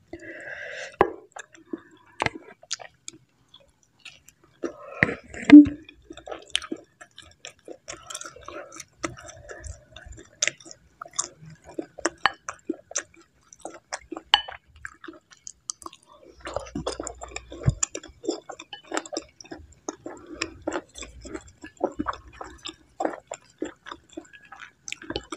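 Close-miked chewing of bakso aci meatball soup with instant noodles, with many small wet mouth sounds and sharp clicks throughout, one louder short sound about five seconds in.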